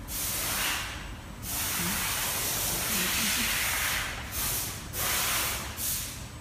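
Compressed air hissing in several bursts from a pneumatic spin welding machine's valves and cylinders, the longest lasting about two seconds.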